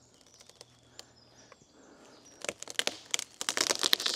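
A heavy-leaning tree giving way at its trigger cut and coming down: a few faint cracks, then a run of snapping and crackling wood that builds over the last two seconds as the trunk breaks free and falls.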